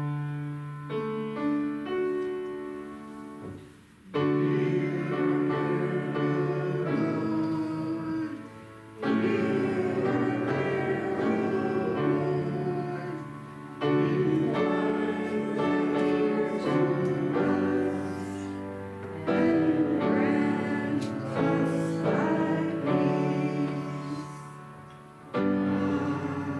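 Slow church music in phrases of about five seconds, each starting with a fresh sustained chord on a keyboard instrument and fading before the next.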